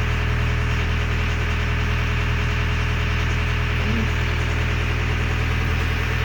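John Deere 318E skid steer's diesel engine running steadily at an even pitch.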